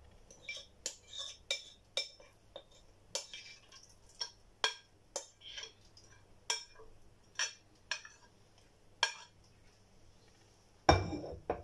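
A kitchen utensil clinking and scraping against a glass bowl as thick marinated meat is scraped out into a nonstick pan: short irregular clinks, about two a second, with a louder clatter near the end.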